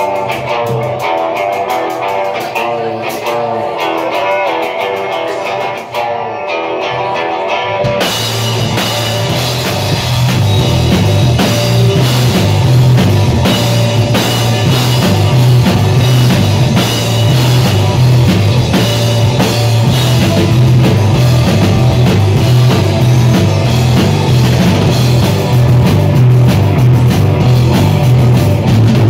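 Live rock band playing loudly: an electric guitar plays alone at first, then drums and bass guitar come in about eight seconds in and the full band plays on.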